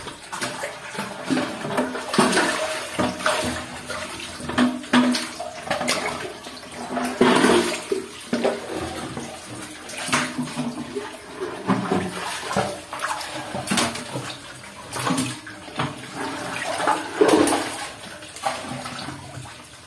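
Shallow muddy water splashing and sloshing in uneven surges as a person wades and moves his hands through it.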